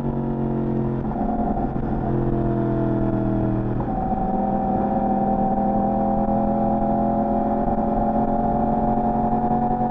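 Yamaha R1 inline-four engine on its stock exhaust, pulling under way. The engine note sags slowly, jumps up sharply about four seconds in, then climbs slowly and evenly.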